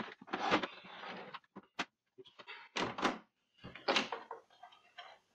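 Plastic LCD TV case being handled and turned over: several separate knocks and scrapes, the strongest about three and four seconds in.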